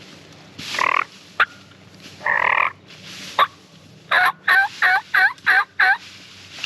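Turkey yelping: a few single calls and clicks, then a run of six quick yelps, each falling in pitch, about four seconds in.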